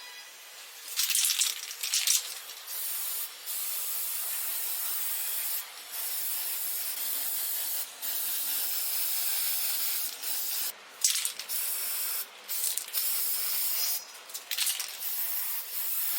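Spray hissing in bursts of one to three seconds with brief breaks between them, starting about a second in.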